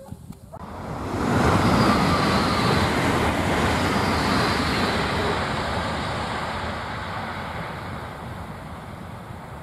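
Italo high-speed train passing at speed: the rush of wheels on rail and air noise swells quickly in the first couple of seconds, then slowly fades as the train draws away, with a faint falling whine.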